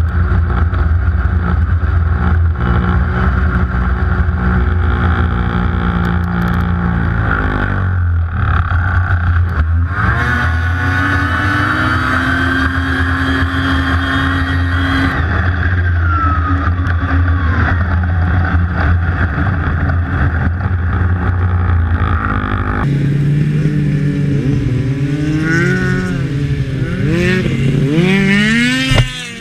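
Snowmobile engine running steadily at speed, its pitch swinging up and down repeatedly near the end as the throttle is worked.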